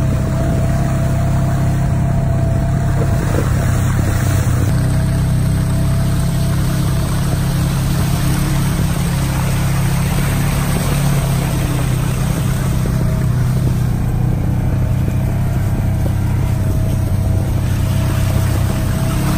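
Vehicle engine running at a steady drone while driving along a wet woodland dirt trail.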